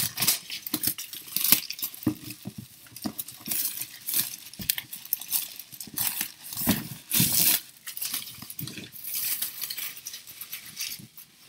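Clear plastic wrap being torn and crumpled off a box by hand: a run of irregular crinkling and crackling.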